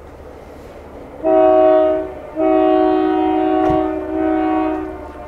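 Work train's multi-note air horn sounding for a road crossing: one blast of about a second, then after a brief gap a longer blast that dips once partway and carries on.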